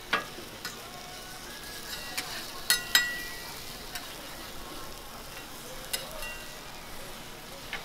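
Eggs and ham frying on a flat-top steel griddle with a steady sizzle. Several sharp metallic clacks of a metal spatula striking the griddle cut through it, the loudest a pair about three seconds in.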